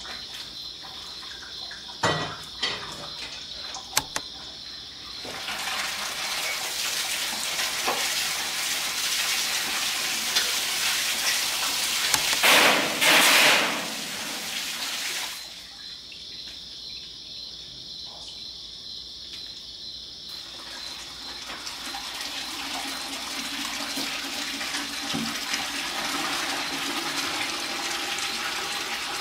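Water from a garden hose spraying into the steel cooking chamber of a cabinet smoker and splashing and running off, with a louder gush about halfway through. A few short metallic knocks near the start.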